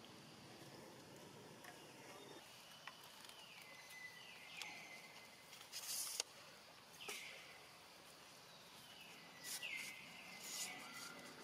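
Faint outdoor animal calls, repeated every second or two, each falling in pitch and then levelling off, with a few short crackles of dry leaves in between.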